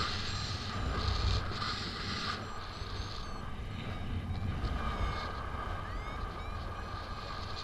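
Wind rushing over the microphone in paragliding flight, a steady low rumble that swells in gusts in the first few seconds. Faint short high chirps and beeps are scattered through it.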